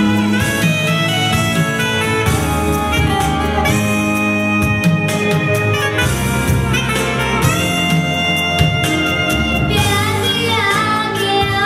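Pop song backing track playing an instrumental break with a melodic lead line over a beat. A girl's singing voice comes in near the end.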